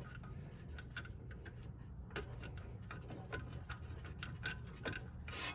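Light, irregular metallic clicks and taps, about two or three a second, from a front brake caliper and its mounting bolt on a 2019 BMW X3 M40i as the caliper is held over the rotor and lined up for its bolts, with one sharper click about a second in. A steady low hum runs underneath.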